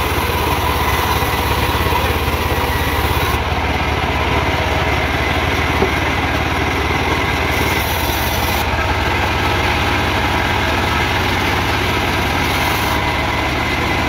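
Vertical band sawmill running steadily, its blade sawing through trembesi (rain tree) wood, with a constant mechanical hum.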